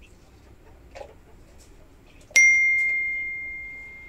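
A single bright bell ding, the notification sound effect of a subscribe-button animation: struck about two and a half seconds in, it rings on one clear high tone and fades slowly over nearly two seconds. A faint click comes about a second in.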